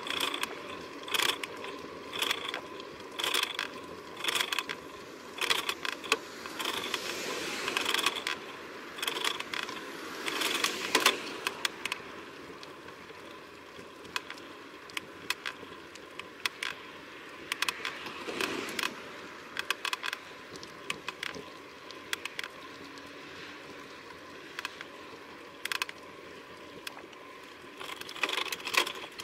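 Irregular rattling and clicking from a bicycle-mounted camera and its bike as it rolls along the road, over a steady hiss of road and wind noise. The rattles come thickest in the first half and again near the end.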